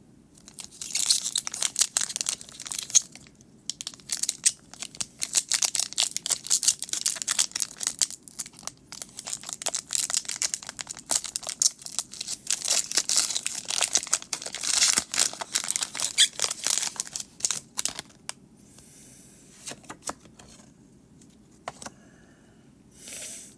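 Foil Pokémon TCG booster pack wrapper being torn open and crinkled, a dense crackling for most of the stretch that thins out near the end.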